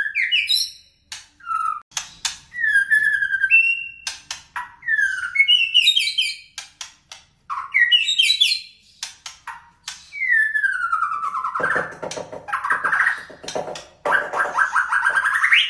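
White-rumped shama singing: a run of varied whistled phrases with sharp clicks and rising and falling glides, turning from about ten seconds in to longer, harsher phrases.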